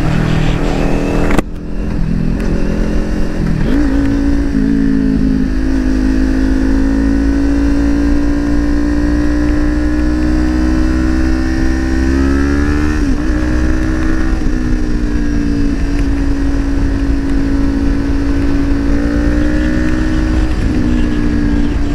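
Kawasaki Ninja 400 parallel-twin engine running at a steady cruise, heard from the rider's helmet with low wind rumble on the microphone. The engine note rises slightly about twelve seconds in and dips briefly a few times as the throttle changes.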